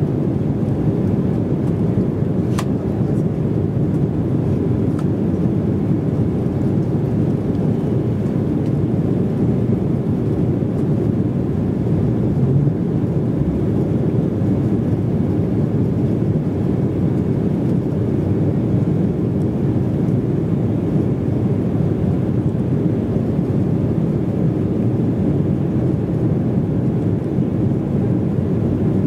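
Steady cabin noise heard from inside an Embraer E190 climbing after takeoff: a low, even rumble of its two GE CF34-10E turbofans and the airflow past the fuselage.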